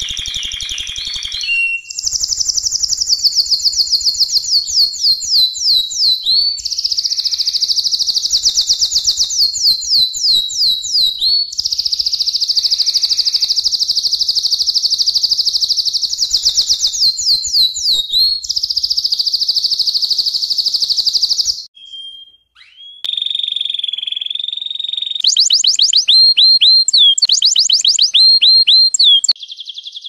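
Domestic canary singing a long, loud, high-pitched song of rapid trills and rolls in phrases of a few seconds each. The song breaks off briefly about two-thirds through, then resumes with fast repeated trills.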